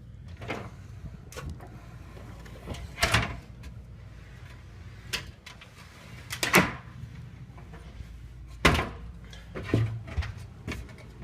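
A series of about eight irregular knocks and clunks, a second or two apart, over a low steady hum.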